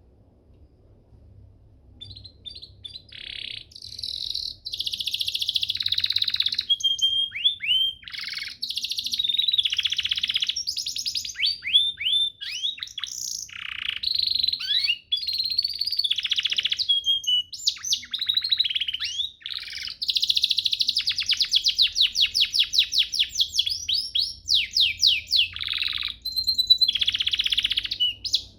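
Domestic canary singing a long, fast, varied song of rapid trills and quick whistled sweeps, starting about two seconds in.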